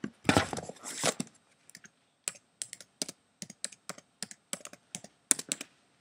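Handling rustle, then a run of irregular sharp key clicks on a laptop keyboard, a few a second.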